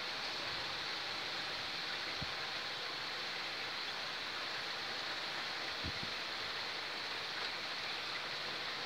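Heavy rain falling steadily, a constant hiss, with two soft low knocks about two and six seconds in.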